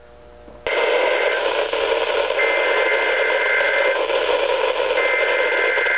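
Weather radio with poor reception bursting into loud static about two-thirds of a second in. Through the hiss come three roughly one-second bursts of the two-tone EAS SAME data header, the digital code that opens a NOAA Weather Radio alert, here a Special Marine Warning.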